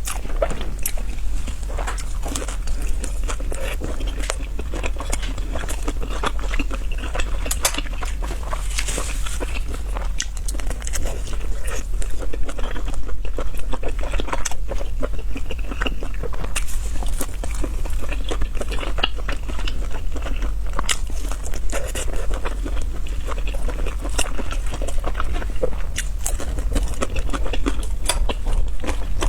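Close-miked eating sounds from a spicy noodle and chicken mukbang: continual chewing, biting and wet mouth clicks, with small crunches.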